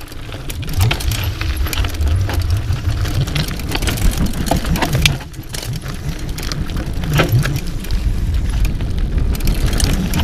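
Mountain bike riding over rough ground: a steady low rumble of wind and tyres on the microphone, with constant rattling and clicking from the bike's chain and parts.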